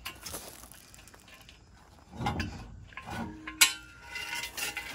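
Steel parts of an Erickson truck bed extender clanking and scraping as the long tube is worked out of the hitch receiver, with one sharp metal clink about three and a half seconds in.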